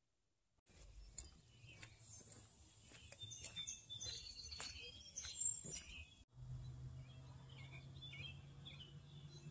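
Several songbirds chirping and calling, with short quick notes and sweeping whistles. After about six seconds the sound cuts to a low steady hum with fainter bird chirps over it.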